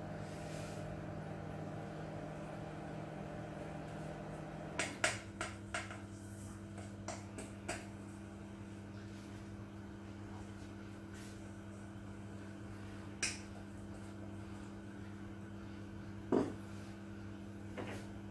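A metal spoon scraping and tapping against a stainless steel mixing bowl as thick brownie batter is scraped out into a cake pan, giving a cluster of sharp clicks about five to eight seconds in, over a steady low hum. A louder knock near the end as the bowl is set down on the table.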